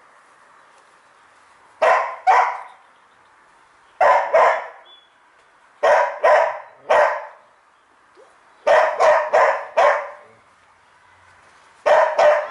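A dog barking in quick groups of two to four barks, with a pause of a second or two between groups, about a dozen barks in all.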